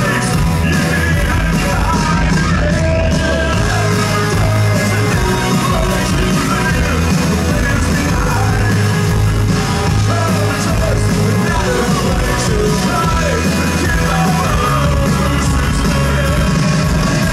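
Rock band playing live, loud and continuous: a male singer singing into the microphone over electric guitar and a heavy low end.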